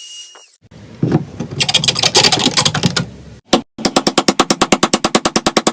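Woodworking tools at work in quick succession: a high whine fades out, then a rough grinding noise, and after a short break a fast, even clatter of about ten strokes a second.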